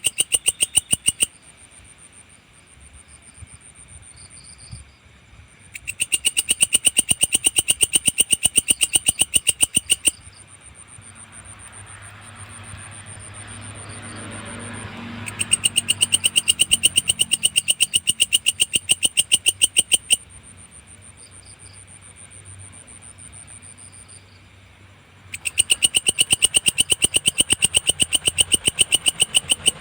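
A singing belalang (grasshopper) calling in long bursts of rapid, evenly pulsed high-pitched chirring, each lasting about four to five seconds and repeating about every ten seconds. A fainter steady high buzz continues between the bursts. A low rumble rises and fades in the middle.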